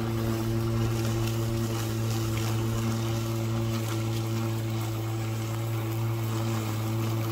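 Stihl 235 battery lawn mower's electric motor running steadily with a constant hum as it is pushed through grass, cutting it.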